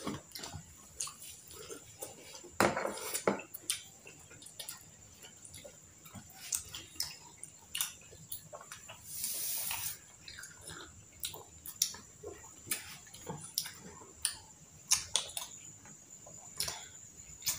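Close-up eating sounds: chewing, with scattered clicks and taps of metal forks against a plastic food container. A brief hiss about nine seconds in.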